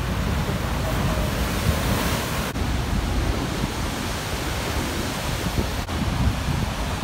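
Rough sea in a storm surge: heavy surf breaking and washing, with gusting wind buffeting the microphone as a low rumble. The hiss of the surf swells about two seconds in.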